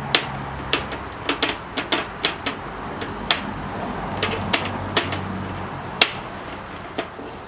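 A kitchen utensil knocking and scraping against a mixing bowl in irregular clicks while butter is mashed up.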